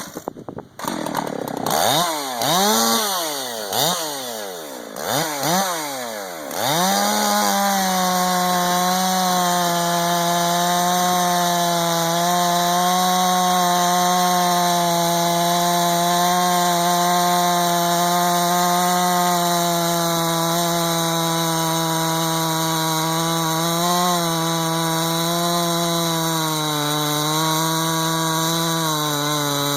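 Husqvarna 562XP chainsaw with a 25-inch bar revved in several quick rising-and-falling throttle blips, then held at a steady full-throttle run through a cut in wood from about six seconds in, its pitch sagging slightly now and then under load.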